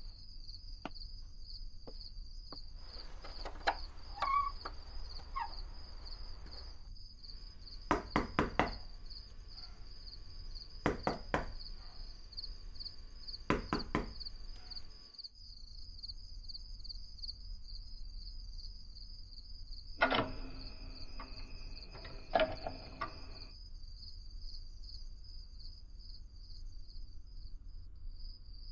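Crickets chirping steadily, with a few short groups of sharp knocks, a hand rapping on wooden paneling, and another cluster of knocks with a brief held tone about twenty seconds in.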